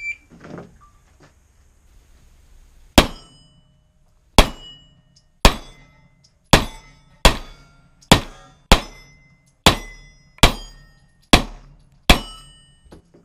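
A shot timer's short start beep, then about three seconds later eleven pistol shots, roughly a second apart and slightly quicker toward the end. Several shots are followed by a brief metallic ring from the steel plate targets being hit.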